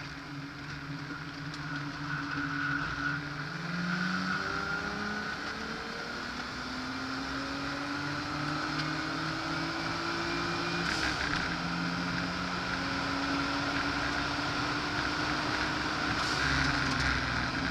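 Car engine heard from inside the cabin at speed on track, its pitch climbing as it pulls through a gear, dropping sharply at an upshift about eleven seconds in, then climbing again, with road and wind noise underneath.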